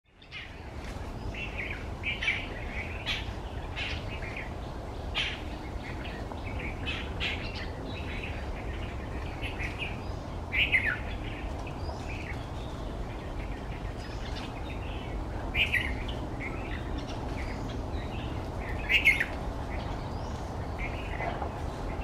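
Birds chirping in short, scattered calls, a few of them sweeping down in pitch, over a steady low rumble of wind on the microphone.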